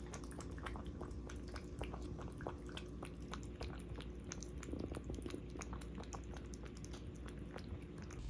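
A cat eating fast, a rapid irregular string of small chewing clicks.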